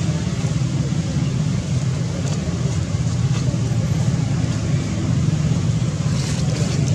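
A steady low rumble of a motor vehicle's engine running nearby, unbroken throughout, with a few faint high ticks over it.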